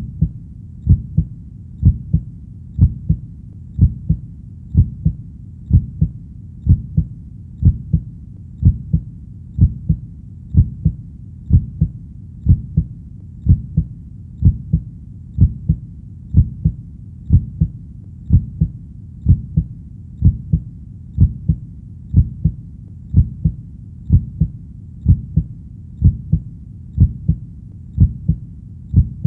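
Heartbeat: a steady lub-dub, two low thuds close together, repeating about once a second.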